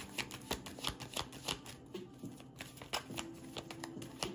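A deck of reading cards being shuffled by hand off-camera: a quick, irregular run of soft clicks and flicks as the cards slide over one another.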